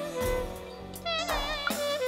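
Instrumental music: a melody line with bending, wavering notes over low beats.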